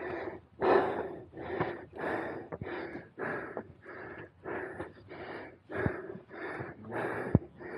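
A man breathing hard and fast, each breath in and out heard, about two a second: out of breath from climbing steep steps up a mountain.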